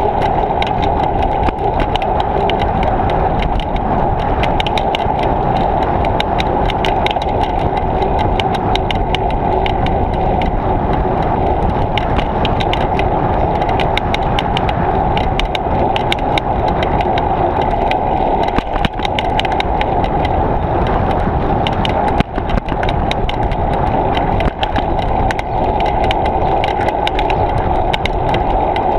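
Steady wind and rolling noise from a bicycle ride picked up by a GoPro action camera's microphone, with many small clicks and rattles throughout.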